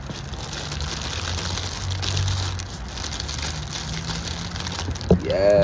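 Packaging being handled and unpacked: paper and wrapping rustling and crinkling, over a steady low hum.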